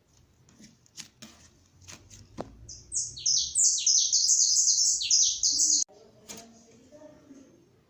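A bird chirping: a fast run of short, high, falling notes for about three seconds that stops abruptly, after a few soft clicks.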